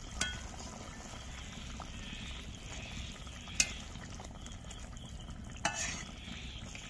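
Curry cooking in a pan with a steady sizzle while it is stirred with a spatula. The spatula knocks sharply against the pan three times.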